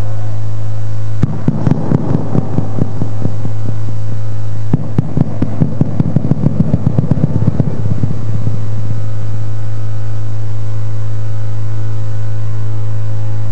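Loud, steady electrical hum with a buzzy stack of overtones. Irregular crackling clicks come in from about a second in and stop at about eight seconds.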